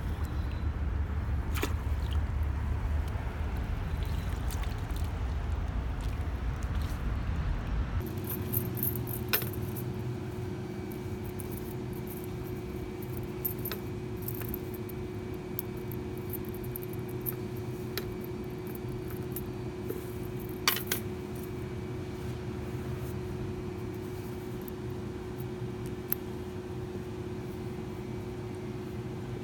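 Steel safety pins being handled, giving a few separate sharp metallic clicks and clinks over a steady low hum. For the first several seconds there is only a low outdoor rumble.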